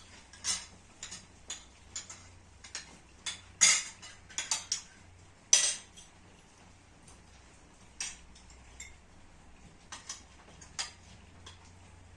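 Cutlery clinking against plates while people eat: irregular, scattered clinks, the two loudest about a third and halfway through.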